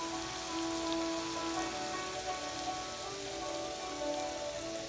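Sliced red onions sizzling in oil in a frying pan, a steady crackling hiss, with background music of held notes over it.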